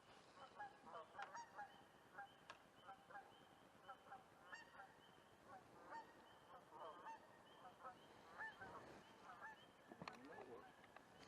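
Faint bird calls: many short, pitched calls repeating irregularly, with a row of quick high chirps behind them.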